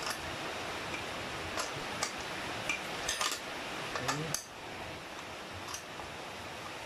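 Irregular metal clicks and clinks of a 13 mm socket turning the nuts that fasten a stationary bike's seat to its post, a few sharp ticks spread unevenly over several seconds.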